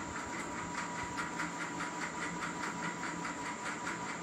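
Steady background hiss with a faint hum and a fast, even ticking, about five ticks a second.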